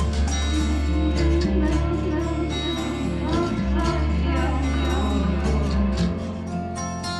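A song played back through a small desktop speaker and picked up by a microphone: singing over a steady bass line and percussion.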